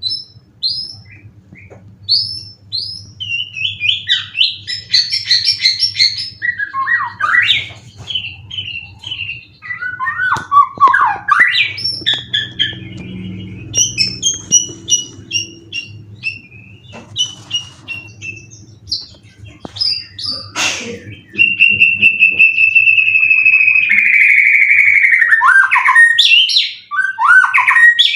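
White-rumped shama singing a long, varied song of quick chirps, whistled notes and falling phrases. About three-quarters of the way through it holds a loud, steady trill for several seconds, then breaks back into short falling notes.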